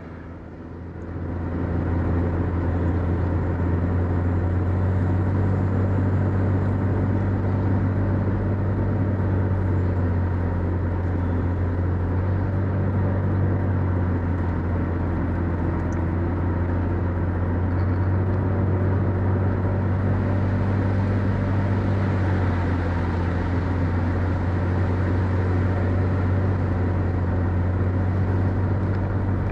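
Mercedes-Benz W124 on the move: a steady low engine hum with road noise, fading in over the first two seconds.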